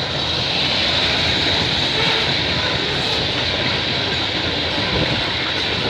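Freight cars of a CN freight train rolling past with steady wheel-on-rail noise.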